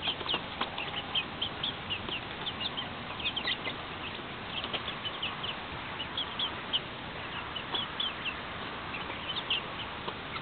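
A group of young chickens, about five to six weeks old, peeping: many short, high chirps that each fall in pitch, overlapping one another.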